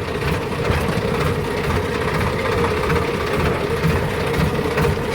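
A heavy machine's diesel engine running steadily at an even speed, with a constant low rumble and hum.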